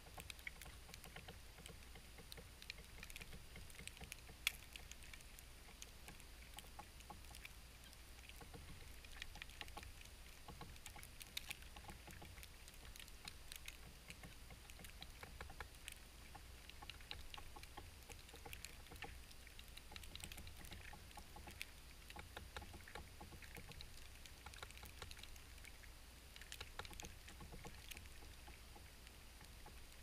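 Faint, irregular ticking and tapping of a red-bellied woodpecker pecking at suet in a wire cage feeder, over a low steady rumble.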